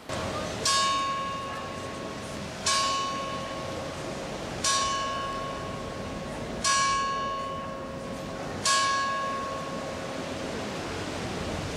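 Church bell struck five times at an even pace about two seconds apart, each stroke ringing on and fading before the next.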